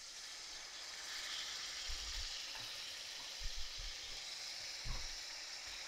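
Pacific rock cod fillets searing in hot olive oil in a frying pan: a steady sizzle, with a few soft low thumps about 2, 3.5 and 5 seconds in.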